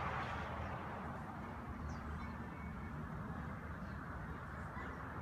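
Steady hum of distant road traffic from a busy boulevard, with a few short bird chirps over it.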